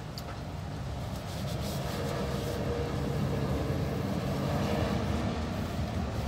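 Large truck engine running, a steady low rumble that grows louder about a second and a half in.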